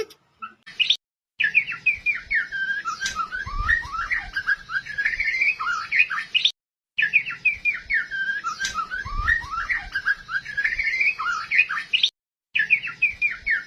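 A songbird singing a fast, varied song of quick chirps and short sliding notes, broken by brief silences about a second in, midway and near the end.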